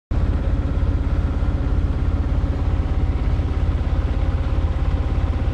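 Inboard engine of a small sailboat running steadily under way: a low drone with a fast, even pulse.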